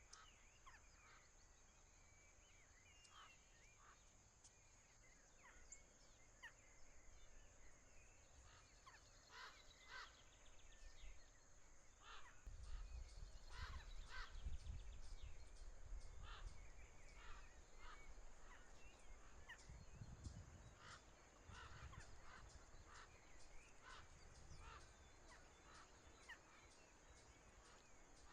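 Wild birds giving many short chirps and calls, faint, over a steady high-pitched hum, with a low rumble for a few seconds around the middle.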